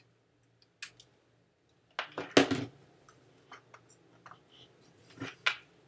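Clicks and knocks of hard plastic gear being handled: Fatshark FPV goggles taken off and set down on a desk, with the loudest clatter about two seconds in, a few light clicks after it and two knocks near the end.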